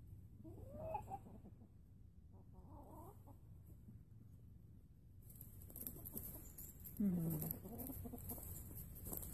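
Chickens clucking in three short bouts, the loudest one near the end.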